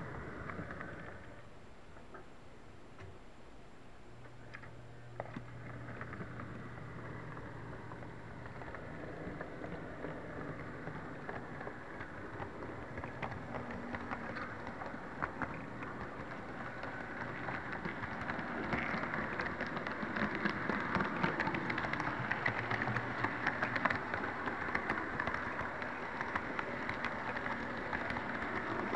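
HO-scale model train rolling on its track, heard close to the rails: a steady rattling clatter of metal wheels with many small clicks over rail joints and turnouts. A low motor hum shows briefly early on, and the clatter grows louder in the second half.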